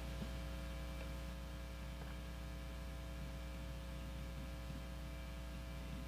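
Steady low electrical mains hum with fainter higher overtones held at a constant level.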